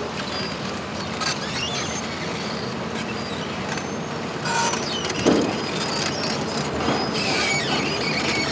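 Heavy diesel earth-moving machinery, an excavator and a drilling rig, running steadily, with a few metallic knocks and creaks and a brief rising squeak about five seconds in.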